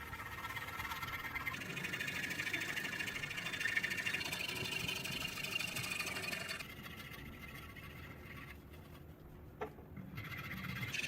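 Rapid, continuous scraping of surface rust off a pitted steel knife tang, a dense rasping. It eases about two-thirds through, a single sharp click follows, and the scraping picks up again at the end.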